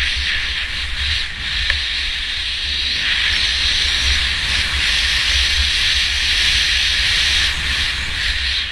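Skis hissing steadily over snow during a downhill run, with an uneven low rumble of wind buffeting the microphone.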